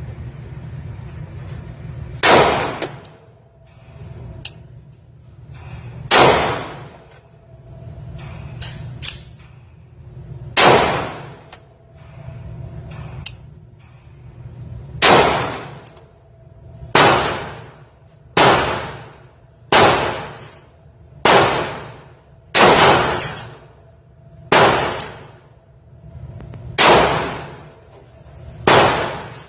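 Glock 26 9mm pistol fired in slow single shots, about a dozen and a half sharp reports at uneven gaps of one and a half to four seconds, each ringing off quickly.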